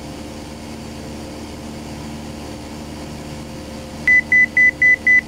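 Light aircraft engine droning steadily in the cockpit, then, about four seconds in, five short, loud, high-pitched beeps of a cockpit alert, about four a second.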